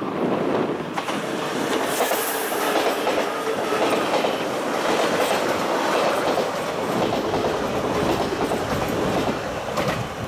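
SBB ICN (RABDe 500) tilting electric train passing close by: a steady rush of wheel-on-rail noise that builds over the first couple of seconds and eases near the end.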